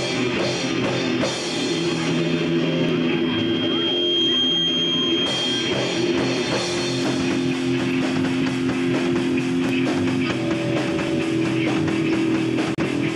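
Live rock band playing: electric guitars holding sustained notes over bass and a drum kit, with a brief dropout in the sound near the end.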